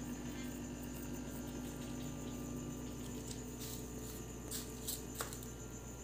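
Steady low electrical hum of a homemade refrigerator egg incubator, whose small 12-volt fan runs continuously to circulate the bulb's heat. There is a faint click about five seconds in, where one tone in the hum stops.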